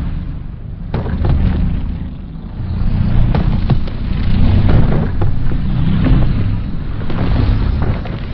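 Custom giant-monster sound effect: a loud, deep rumble with scattered crackles. It swells and eases in waves every couple of seconds.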